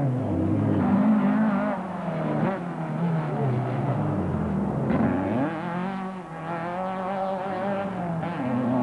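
Off-road race car engine revving hard on the course, its pitch rising and falling with the throttle, dropping low about four seconds in and climbing again soon after.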